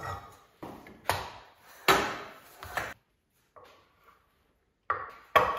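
Stainless steel pot and metal bowls being set down on a wooden cutting board: a string of separate knocks and light clanks, the loudest about two seconds in.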